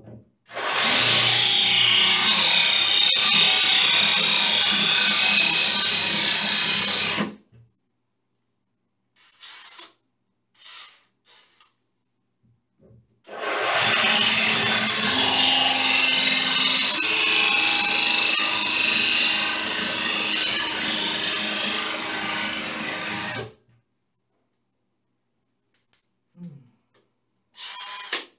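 DeWalt cordless drill boring into a ceramic tile wall, running in two long stretches of about six and ten seconds with a pause of several seconds between them, and a few small knocks and clicks in the gaps.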